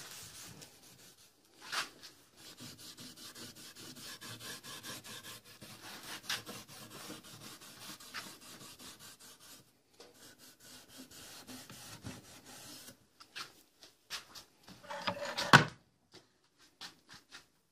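Cloth rubbing over the freshly stained wood of a wooden box in quick, repeated strokes, followed by a few sharp knocks near the end, one much louder than the rest.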